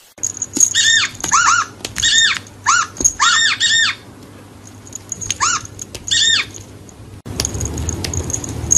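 Short, high squeaks from a cat game on a tablet as the cat paws the screen. Each squeak rises and falls the same way, and they come in quick runs: about nine in the first four seconds, then two more a little later.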